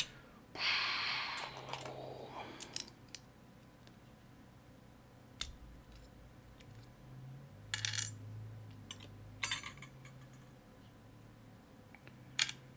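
Small metal lock parts being handled: a brushing rustle near the start, then a few scattered sharp clicks and clinks of metal on a hard surface.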